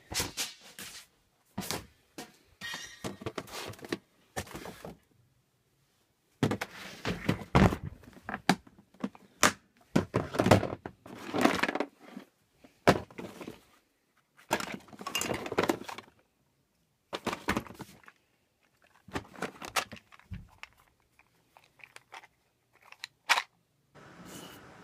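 Rummaging through a plastic storage tote full of boxes and gear, with items shifted, knocked and clattering in irregular bursts separated by abrupt silent gaps. A sharp knock comes near the end.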